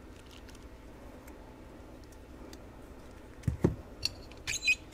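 Faint room tone, then two quick knocks a little after three seconds in, followed by brief high squeaks and clicks near the end: a soldering iron, solder spool and wires being handled and set down.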